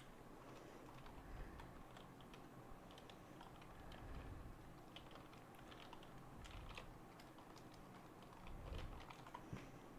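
Faint, irregular clicking of computer keyboard keys being pressed.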